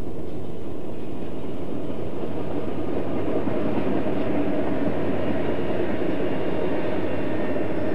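Union Pacific diesel freight locomotives passing close by, engines running, followed by freight cars rolling past with a steady rumble of wheels on the rails.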